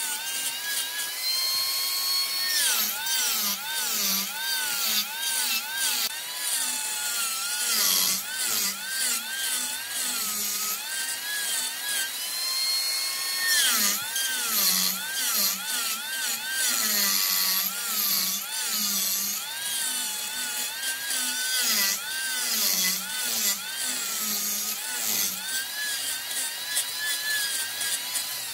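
Wood lathe spinning a workpiece while a turning tool cuts it. There is a high whine that wavers rapidly up and down in pitch, over a low pulse that comes about twice a second.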